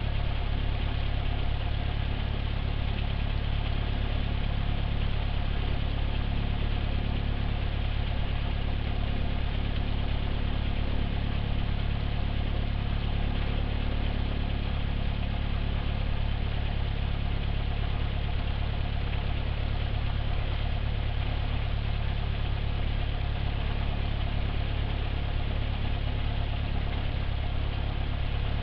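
Cessna 172's piston engine and propeller idling steadily while the aircraft stands still: an even, unchanging low drone.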